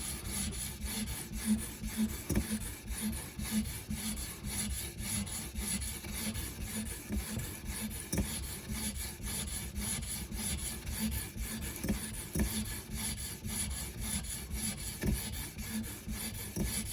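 A 154CM steel knife blade being stroked back and forth on a 220-grit stone of an Edge Pro sharpening system, a steady run of rasping strokes. This is the edge being ground at about 20 degrees per side to raise a burr.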